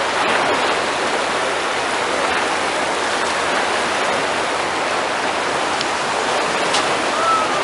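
Steady rush of the Iguazú River in heavy flood, muddy water racing through rapids.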